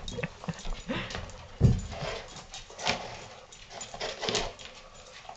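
Golden retriever eating dry kibble off a tile floor: irregular crunching and clicking, with a dull thump about a second and a half in.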